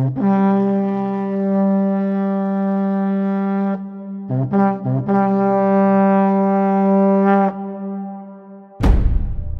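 Background music: a long held low brass note, broken about four seconds in by a few short notes, then held again until it fades, followed by a deep drum strike near the end.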